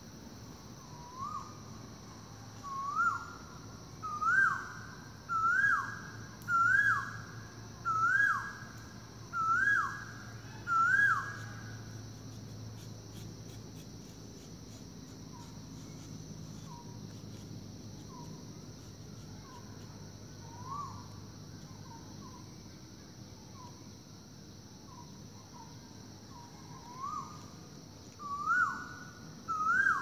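Male Asian koel giving its rising two-note "ko-el" call, a series of about eight calls that climb in pitch and loudness and then break off. Fainter calls follow, and a new rising series starts near the end. A steady high hiss runs underneath.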